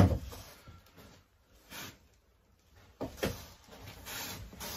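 A cordless drill set down on a wooden workbench with one sharp knock, followed by a few quieter clicks and scrapes of handling as a drill bit is fitted into its chuck.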